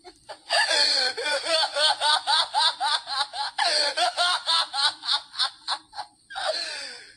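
A man's exaggerated "evil laugh": a long run of rapid, even "ha-ha-ha" pulses, about four a second, pausing briefly near the end before one more short burst.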